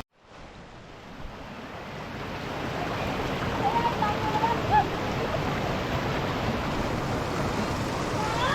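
Running water of a spring-fed stream: a steady rushing that fades in over the first few seconds after a sudden cut, with a few faint brief calls near the middle.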